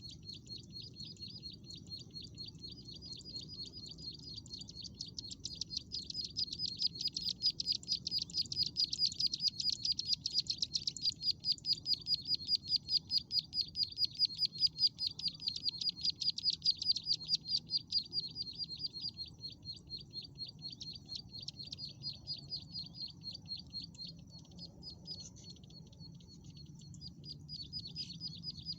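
Prinia (ciblek sawah) calling: a long, fast run of sharp repeated chirping notes, loudest in the middle.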